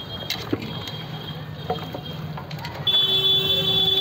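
Light clicks and knocks from hands mixing marinated chicken in a steel pot, over a low steady hum. About three seconds in, a louder long steady horn tone starts and holds.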